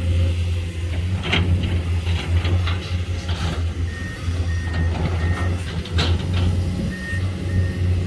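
Komatsu PC210 excavator's diesel engine running steadily under load, with clanks and scrapes as the bucket works the sand. From about halfway through, a machine warning alarm sounds a run of short high beeps, a little under two a second.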